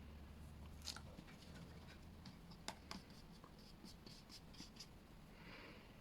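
Faint paintbrush strokes on paper: a few light taps, a quick run of short dabbing strokes, then a brief scratchy stroke near the end.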